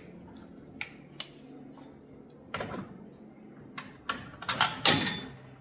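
Small metal hardware being handled: light clicks and clinks of nuts, bolts and a steel garage door roller bracket being fitted by hand, a few single clicks at first, then a quick run of louder clinks about four seconds in.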